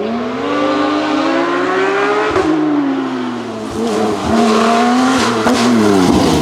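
Porsche 911 GT3 Cup's flat-six engine under hard acceleration: the revs climb for about two seconds, break off and fall away, climb again, then drop sharply near the end.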